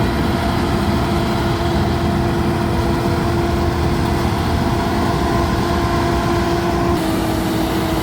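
Laverda Fiatagri 3790 combine harvester's diesel engine running steadily under a deep rumble, with a steady whine over it; the whine steps slightly lower near the end.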